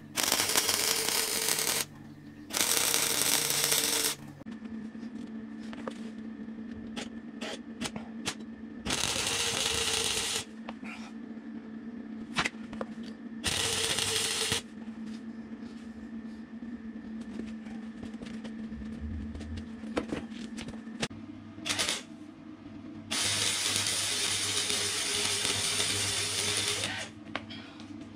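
Gasless MIG welder arc crackling as it welds steel tube into a motorcycle sub-frame. It comes in a series of bursts a second or two long, with a longer run of about four seconds near the end. A steady hum and a few clicks fill the gaps between the bursts.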